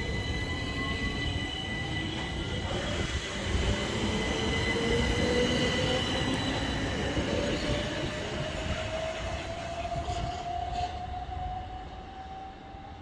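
Southeastern Class 375 Electrostar electric multiple unit pulling away from the station, its traction motor whine rising steadily in pitch as it accelerates, over a wheel-and-rail rumble. A high steady whine fades about halfway through, and the whole sound drops away near the end as the train draws off.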